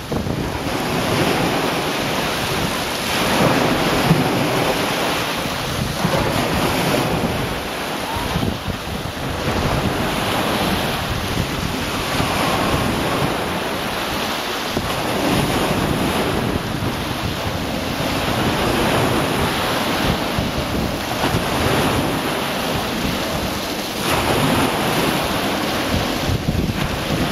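Small waves breaking and washing up a stony shore in repeated swells, with wind buffeting the microphone.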